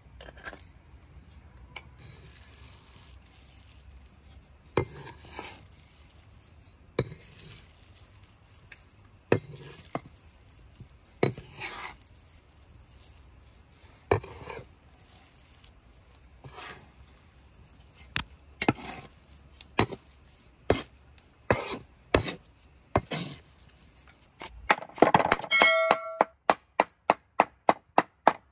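Heavy cleaver on a wooden cutting board hand-mincing seasoned chicken: single strikes and scrapes every second or two, then a short ringing clang of the steel blade near the end, followed by fast steady chopping at about three strokes a second.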